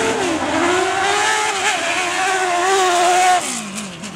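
Autocross race car engine at high revs on a dirt track. Its pitch climbs in the first second and holds high, then falls away near the end.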